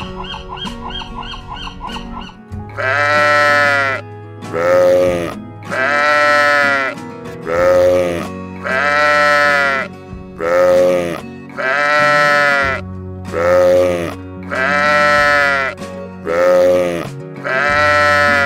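Sheep bleating over background music: from about two and a half seconds in, loud bleats come at even spacing, a long one and a short one in turn, about one every one and a half seconds. Before that only the music is heard.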